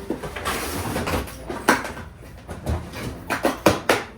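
A gift box being handled and opened: cardboard and packaging rustling and sliding, with several sharp knocks toward the end.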